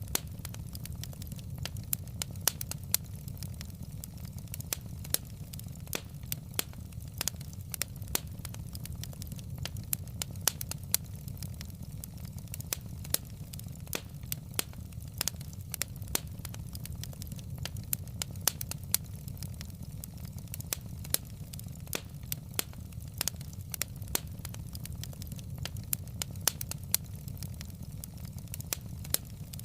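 Wood fire in a fireplace crackling, with frequent sharp irregular pops and snaps over a steady low rumble of burning logs.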